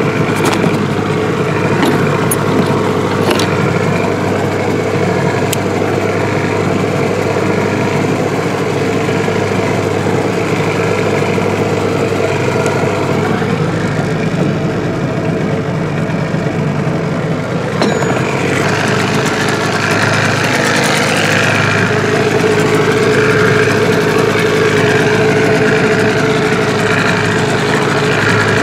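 Johnson 15 hp two-stroke outboard running steadily at low throttle, a little louder in the last several seconds. A few light clicks in the first seconds come from gear being handled in a plastic tackle box.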